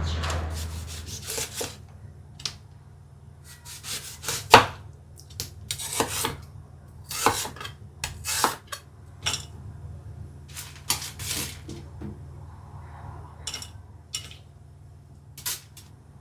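Kitchen utensils and containers being handled on a counter: a scattered series of clicks, taps and short scrapes, the sharpest knock about four seconds in, over a faint steady hum.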